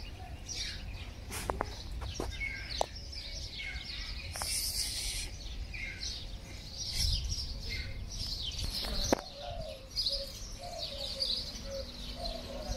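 Many small birds chirping and twittering, with a few sharp clicks and a brief hiss about four seconds in.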